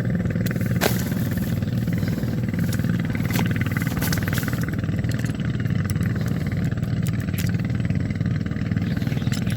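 A small engine running steadily at an even speed, with a few sharp clicks over it.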